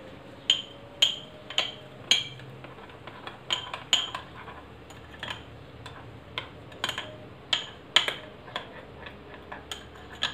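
Metal spoon clinking irregularly against a small glass bowl, about one or two light strikes a second, while stirring instant coffee and cocoa powder into a little hot water to make a paste.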